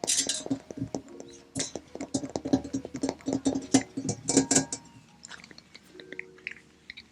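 Fingertips and nails tapping on the metal body of an excavator: quick, sharp taps that each ring briefly like struck steel. The taps are dense for about five seconds, then thin out to a few scattered ones.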